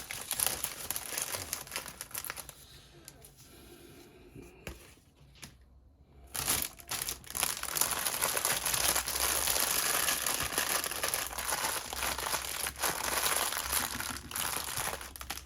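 Packaging from a diamond painting kit crinkling and rustling as it is handled. There is a quieter lull about five seconds in, and then steady, louder crinkling from about six seconds in.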